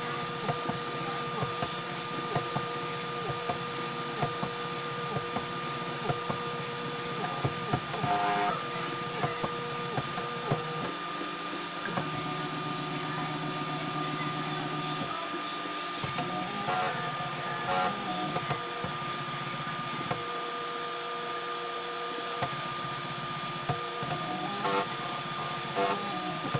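A homemade 3D printer is printing, its stepper motors whining in tones that change pitch with each move of the head, with frequent short ticks and a steady high tone underneath.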